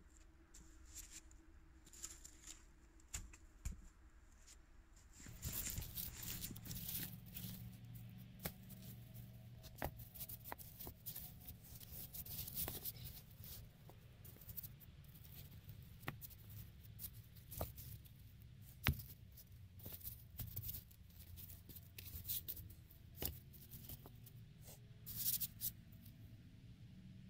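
Gloved hands scraping and rustling through frozen leaves and snow in a stone fire pit, with scattered knocks of rocks being shifted against each other, one sharper knock about two-thirds of the way through.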